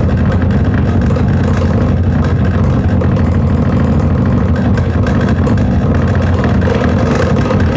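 Steady, low, engine-like drone from a Noise Box 11 sound box playing its 'beetle in a box' sound, running evenly without breaks.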